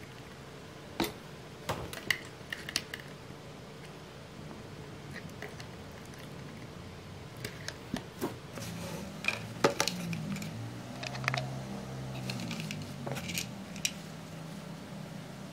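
Irregular small clicks and taps of plastic parts, a servo and wire leads being handled and fitted into a 3D-printed plastic boat hull, with a few sharper clicks.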